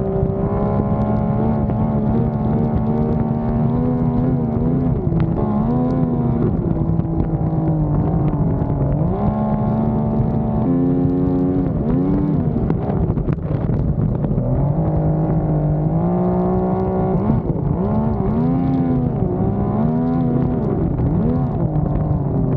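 Outboard boat engine running hard under way, its revs repeatedly rising and falling in pitch.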